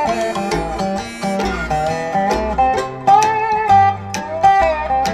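Acoustic country-style instrumental, a picked guitar melody with bending notes over a bass line, played back through KEF LS50 bookshelf speakers.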